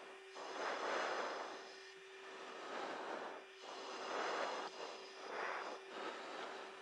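Aircraft cabin noise through a phone microphone: a steady low hum under a rushing hiss that swells and fades roughly every second.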